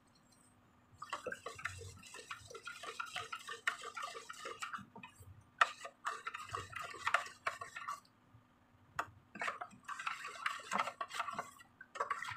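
Metal spoon stirring liquid in a stainless steel mug, clinking and scraping against the sides in quick runs. It starts about a second in and comes in three spells with short pauses.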